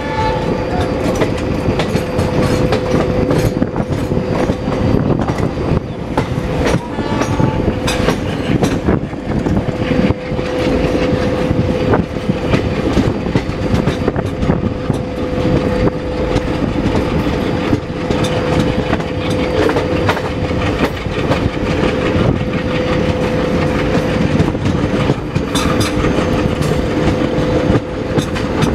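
Rebuilt ALCO diesel-electric locomotive chugging heavily as it accelerates a passenger train, with a steady whine throughout and wheels clattering over rail joints.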